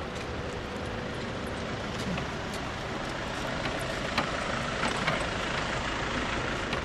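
Steady outdoor street noise with a few light clicks and knocks scattered through it.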